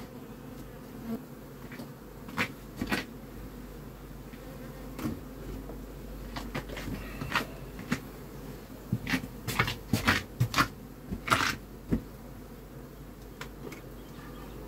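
Honeybees buzzing steadily around open hives, with scattered sharp wooden clacks and knocks of hive boxes and frames being handled, the loudest cluster about two thirds of the way through.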